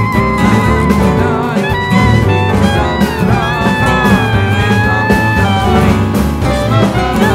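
Background music: an instrumental track with a melodic lead over a steady beat.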